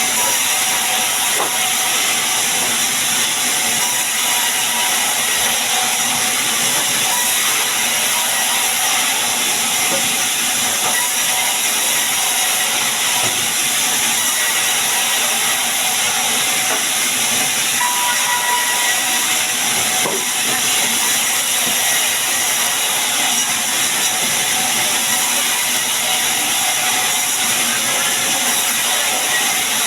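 Sawmill saw running through sengon wood, a loud steady hiss with no break.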